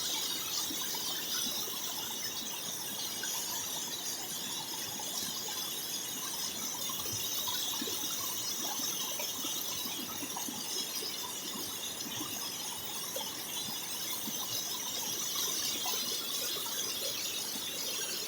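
Waterfall: a steady rush of falling water with a bright hiss.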